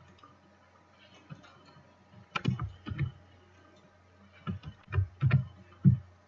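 About nine sharp clicks and knocks at a computer desk, in irregular pairs and groups starting a little over two seconds in, over a faint steady electrical hum.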